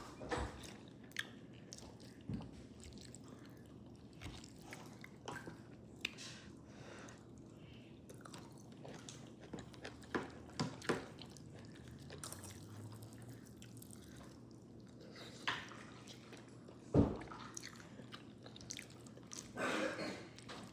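A person chewing and biting food close to the microphone: wet mouth sounds and lip smacks with scattered short clicks, one louder sharp click near the end.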